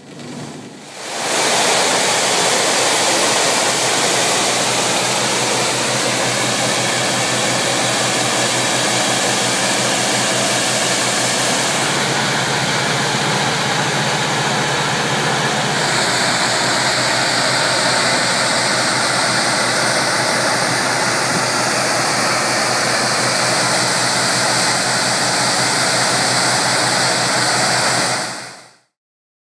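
Engine-driven fire pump of a water-transport container, with an FPT engine, running steadily under the loud hiss of water jetting from a hand-held hose nozzle and a monitor nozzle. The sound starts about a second in, changes tone briefly midway and cuts off near the end.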